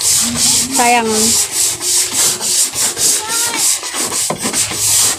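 Wet scouring sponge scrubbing soot off a painted wall in brisk back-and-forth strokes, about three a second.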